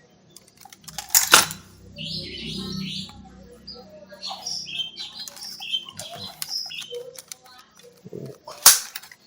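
Toy gun firing twice, two sharp snaps about seven seconds apart, with short high chirping squeaks and plastic rattles between them.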